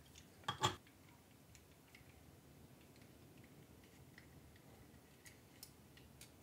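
Small plastic and metal hot-end parts handled by hand: a sharp double click about half a second in, then faint scattered ticks and taps as a plastic airflow cover is fitted to a heatsink.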